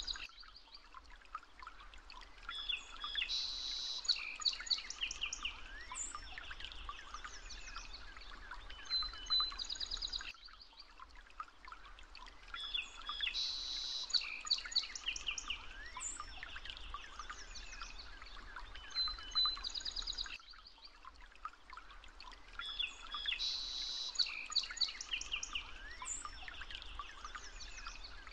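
Birds chirping and trilling over a soft steady hiss, a nature ambience recording that repeats about every ten seconds.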